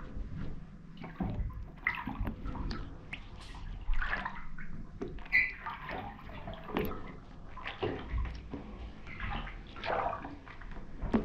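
UGG boots treading in shallow bathtub water, giving irregular sloshing splashes about every half second to second as the feet step and shift.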